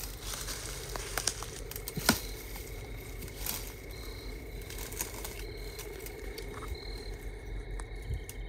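Footsteps crunching through dry leaves and brush, with twigs snapping now and then, the sharpest snap about two seconds in.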